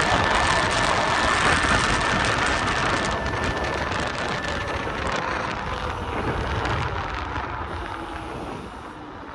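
Wind rushing over the microphone and road noise while riding a Kaabo Wolf King GT electric scooter, with a faint steady high whine early on. The noise dies down over the last few seconds.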